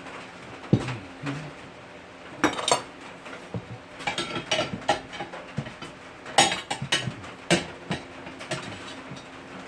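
Irregular metal clanks and knocks of tools and a homemade tire-changer rig as a lawnmower rear tire is worked onto its rim, with the sharpest strikes a little under a second in, at about two and a half seconds, and twice in the second half.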